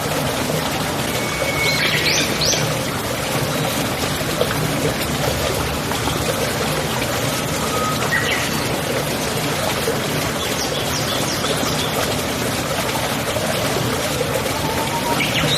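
Steady running water, a stream trickling, with a few short bird chirps over it, a small cluster about ten seconds in and another at the end.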